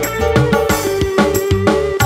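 Live dangdut music over the stage speakers: kendang drums keep a rhythm with pitch-bending strokes, under a long held keyboard note.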